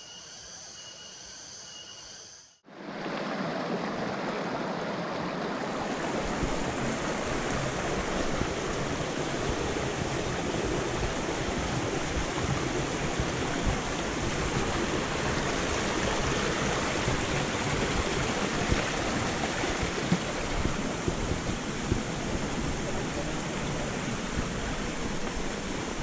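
Shallow mountain stream rushing over rocks, a loud steady rush of water that starts abruptly about three seconds in. Before it, faint insects buzz in repeating pulses.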